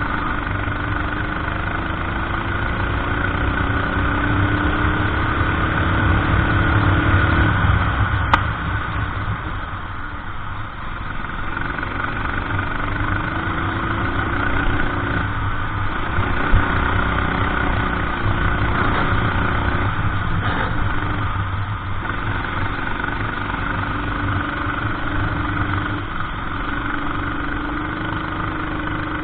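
Racing kart engine running under load, its pitch climbing on the straights and dropping off for corners several times, with a couple of sharp clicks.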